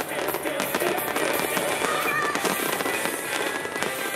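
An aerial fireworks display, with shells bursting and a dense, rapid crackling throughout, over music.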